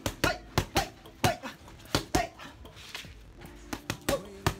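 Boxing gloves smacking focus mitts in fast combinations: a quick run of sharp slaps, a pause of about a second and a half near the middle, then another flurry.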